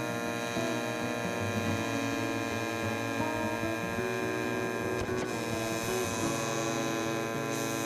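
Cordless portable air compressor (tire inflator) running steadily under load while it pumps up a car tire, a continuous hum with many overtones.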